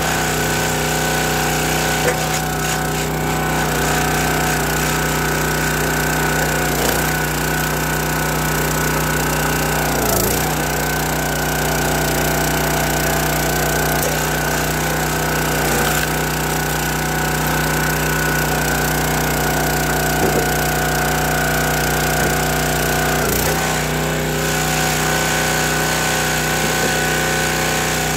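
Small gas engine of a County Line hydraulic log splitter running steadily at full throttle while logs are split. Its note dips briefly a few times.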